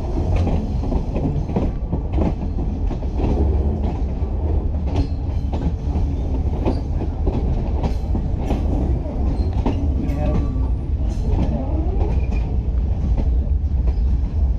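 Passenger express train running slowly into a station, heard from a carriage window: a steady low rumble with the wheels clacking over the rail joints.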